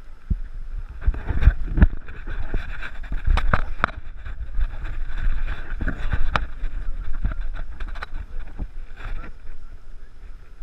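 Wind and handling noise on a small action camera's microphone: a rumble with several sharp knocks, the loudest about two seconds in and again near four seconds, over a steady high hiss.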